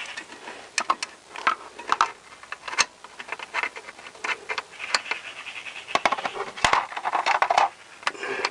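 Hand screwdriver with a Torx bit turning a sump bolt in: irregular small metallic clicks and scrapes, with a short rasping stretch about seven seconds in.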